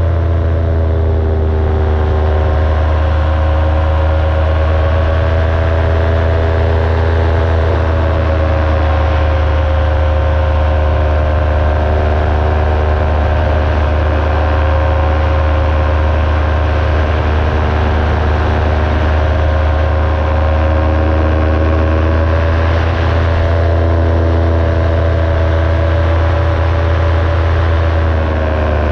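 Engine and propeller of an open-frame ultralight aircraft droning steadily in cruising flight, with wind rushing past the open-air microphone. The engine note shifts slightly in pitch a couple of times.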